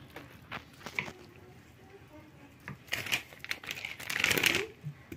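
Plastic bag of grated cheese crinkling as it is handled over a baking dish, with scattered light rustles at first and louder, denser crinkling in the second half.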